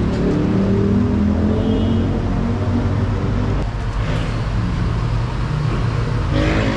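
A motor vehicle engine running with a steady low hum. Its pitch wavers for the first few seconds, then holds steady.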